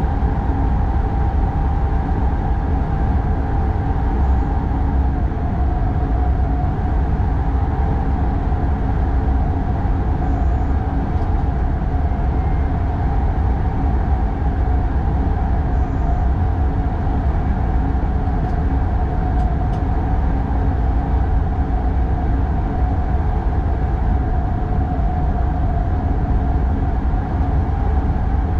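X40 electric multiple unit running along the line, heard inside the driver's cab: a steady deep rumble of wheels on rail with a steady hum above it.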